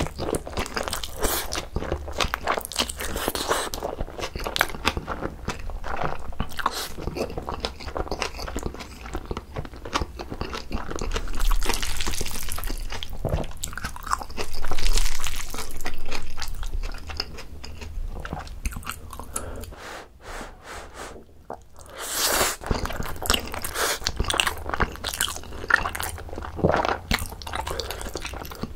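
Close-miked mouth sounds of eating Chapagetti noodles: noodles slurped in, wet chewing and lip smacks, with crunchy bites of green onion kimchi. There is a brief lull about twenty seconds in before the chewing resumes.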